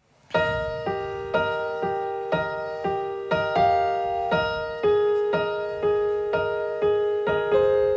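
Piano intro: chords struck about twice a second, each ringing and fading before the next, beginning a moment after the start.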